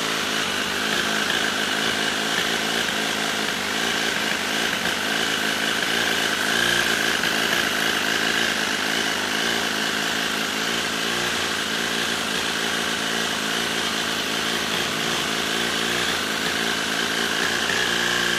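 Miniature flathead six-cylinder gasoline engine running steadily, its speed wavering slightly a few times.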